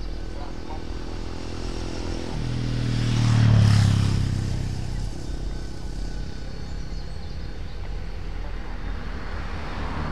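A steady low engine hum, with a motor vehicle passing close by. It swells to its loudest about three and a half seconds in, then fades.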